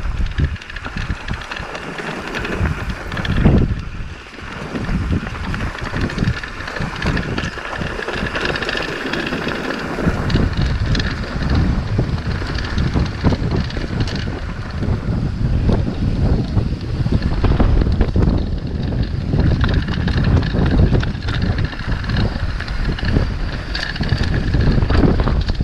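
Strong wind buffeting the camera's microphone, gusting unevenly, while a mountain bike rolls down a rocky gravel trail with a steady patter of tyre crunch and rattles over the stones.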